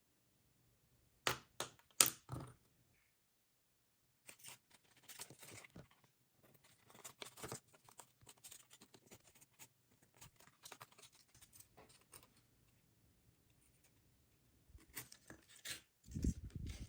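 Cardboard being worked by hand: a few sharp clicks or snips about a second in, then on-and-off scraping and rustling, and a low thud near the end.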